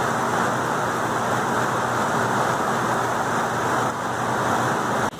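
Heavy rain pouring down, a steady rushing hiss that stops abruptly near the end.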